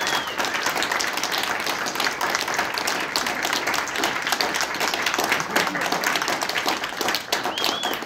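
Audience applauding, with a couple of short whistles among the clapping, one at the start and one near the end.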